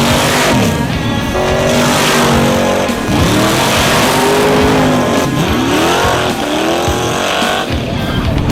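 V8 engine of a custom muscle bike revving hard again and again, its pitch sweeping down and back up several times.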